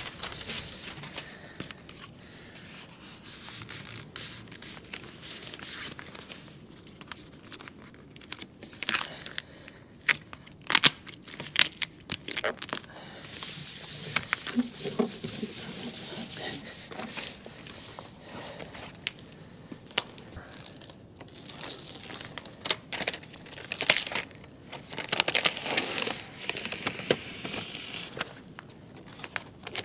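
Self-adhesive flashing tape being laid down: its paper release backing crackles and tears as it is peeled away, and hands rub the tape down flat, in scattered bursts of crinkling and rubbing.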